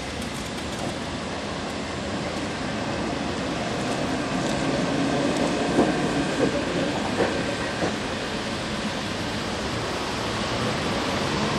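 Two-axle Gotha T2-62 tram running on metre-gauge track, a steady rumble of wheels and running gear. Midway, as it passes close, the wheels clack sharply about four times over rail joints.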